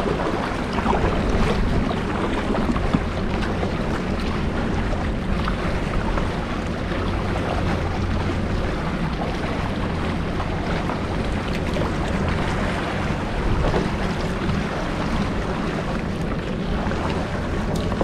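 Steady wind buffeting the microphone over small waves lapping at the shore.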